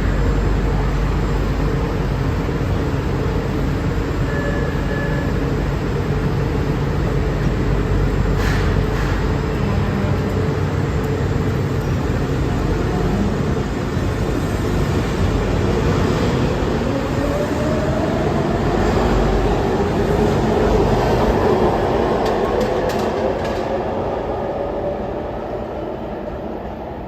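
LA Metro subway train running at the station platform with a steady, loud rumble. A motor whine rises in pitch over several seconds as the train gathers speed, then the noise fades near the end as it pulls away.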